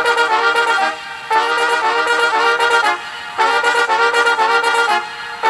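Music from a test cassette playing in a TOA BA-823 cassette deck and amplifier, heard through a pair of speakers. It comes as phrases of quick notes with short pauses between them, and it sounds like the decades-old deck's tape mechanism is working.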